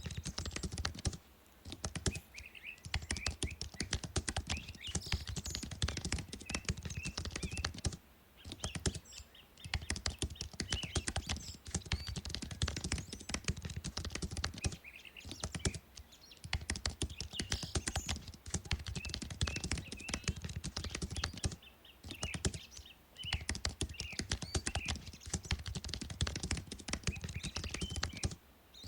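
Fast typing on a computer keyboard: a dense run of key clicks, broken by a few short pauses.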